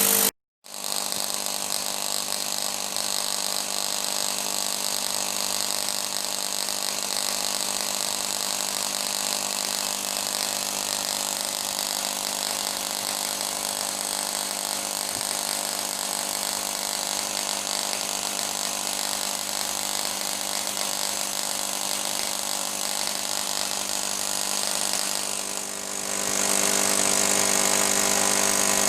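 Microwave-oven magnetron plasma torch running: a steady electrical buzzing hum under a strong hiss. The sound cuts out for a moment just after the start, and near the end the hiss dips, then comes back louder and brighter.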